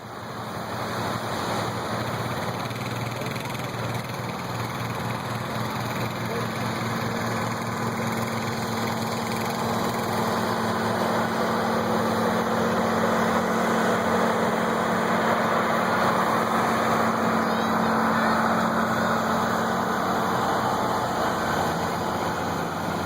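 A heavy engine running steadily with a low hum, growing louder through the first half and easing slightly near the end.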